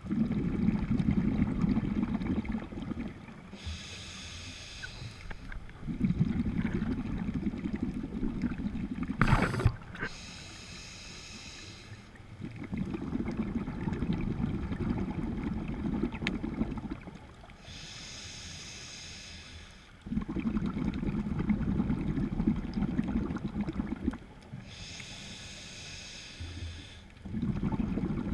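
Scuba diver breathing through a regulator underwater: a hiss on each inhale, then a burst of bubbling exhaust on each exhale, repeating about every seven seconds. A single sharp click comes about nine seconds in.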